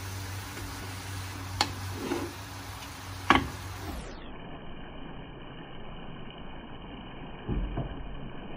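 Wooden spatula stirring chicken pieces in a stainless steel pot, with two sharp knocks of the spatula against the pot in the first half and a duller thump near the end.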